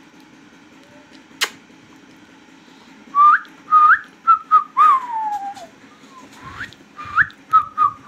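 A whistled phrase of two short upward-flicking notes, two short level notes and a long falling note, repeated, from a ringneck parrot or the person whistling to it. A single sharp click comes about a second and a half in.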